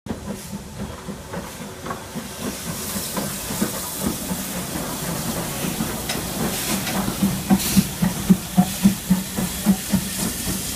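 Ivatt Class 4MT 2-6-0 steam locomotive No. 43106 and its coaches running slowly into a station, with a steady hiss of steam. The wheels click rhythmically over the rail joints, about three to four times a second, louder from about halfway as the locomotive and coaches pass close by.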